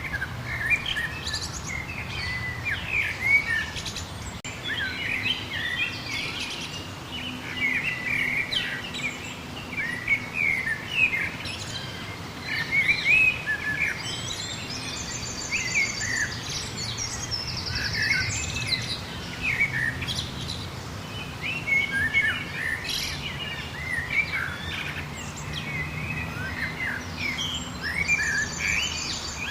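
Songbirds singing and chirping without pause, many short quick notes overlapping. A fast, high buzzy trill comes in three times, twice around the middle and once near the end.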